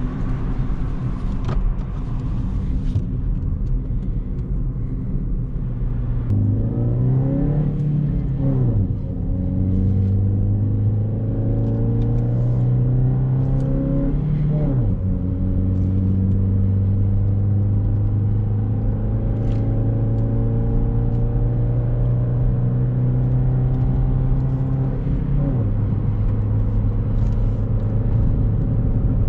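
Chevrolet Beat's engine, fitted with a K&N air filter, pulling under way: its note climbs twice as it accelerates, drops sharply at each upshift, then holds a steady cruising pitch.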